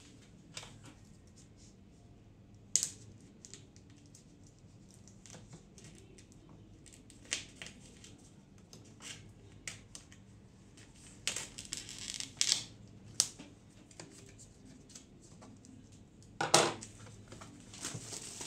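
Scissors snipping through thin clear plastic protective film, with scattered short crackles and crinkles of the film. Near the end the film crackles loudest as it is pulled away.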